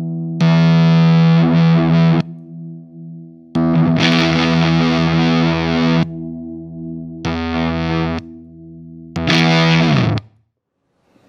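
Electric guitar played through a Catalinbread SFT overdrive pedal: heavy, distorted chords struck four times and left to ring, each starting abruptly, with the last chord choked off suddenly near the end.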